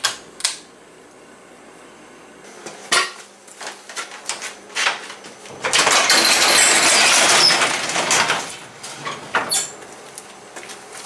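Pull-chain switch on a fluorescent shop light clicking twice, followed by scattered knocks, then a sectional garage door sliding up on its tracks with a loud metallic rattle lasting about three seconds, from about halfway through.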